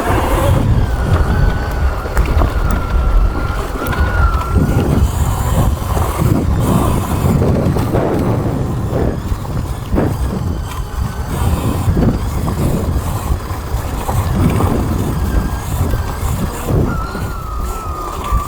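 Electric Sur Ron dirt bike riding on a trail: the motor's thin whine wavers up and down with the throttle for the first few seconds, fades under wind and bumpy rumble in the middle, and returns near the end.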